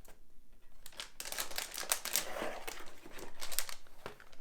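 Packaging crinkling and rustling as a motherboard box is opened and its contents handled, in quick irregular bursts starting about a second in.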